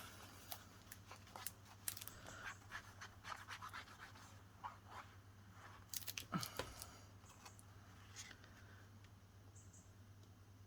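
Quiet handling of paper card and craft tools on a tabletop: scattered light taps, clicks and scratches, a little louder about six seconds in.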